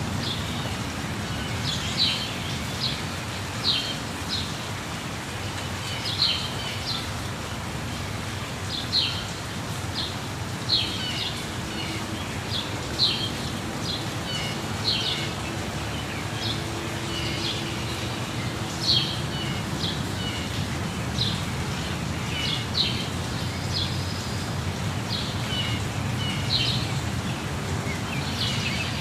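Steady rush of a waterfall with birds chirping in short, sharp notes about once a second throughout.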